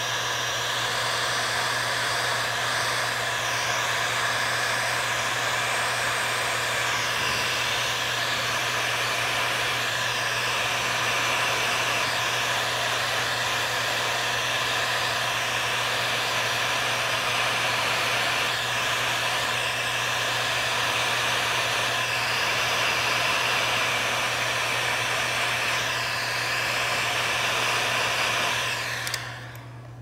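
Electric heat gun running steadily, blowing hot air to shrink heat-shrink tubing over a wire end: a steady rush of air over a low motor hum, switched off near the end.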